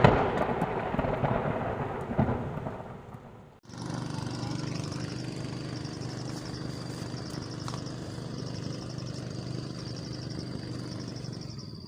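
A loud rumbling noise that fades away over about three seconds and cuts off abruptly. Then comes steady insect chirring with a low, even hum beneath it.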